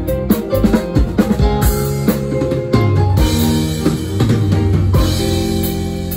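Live band playing an instrumental, led by a drum kit: a busy run of drum strokes for the first second and a half, then a cymbal crash ringing over held bass and chord notes, with another accented hit about five seconds in.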